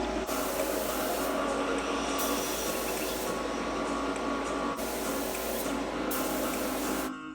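Spray painting in short passes: hissing bursts of one to two seconds that start and stop, over background music. The hiss cuts off near the end.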